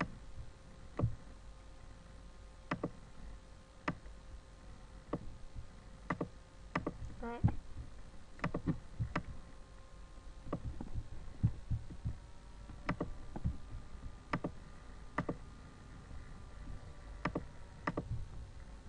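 Computer mouse clicking: single sharp clicks at irregular intervals, about one or two a second and sometimes in quick pairs, over a faint steady hum.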